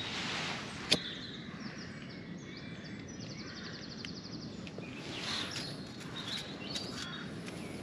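Birds chirping, with a rapid trill about three seconds in, over a steady outdoor background hiss. A single sharp click comes about a second in.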